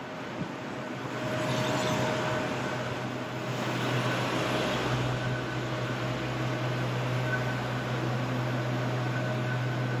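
City street traffic under an elevated railway viaduct: vehicles passing twice as broad swells of noise, over a steady low hum that grows louder about four seconds in.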